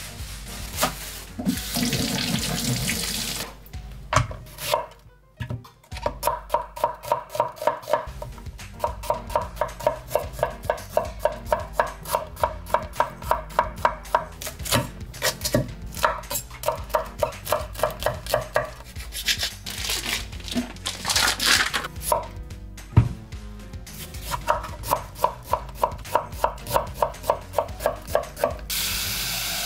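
Knife chopping food on a cutting board in a steady rhythm of about three strokes a second through most of the span. A tap runs briefly near the start and again about two-thirds of the way through.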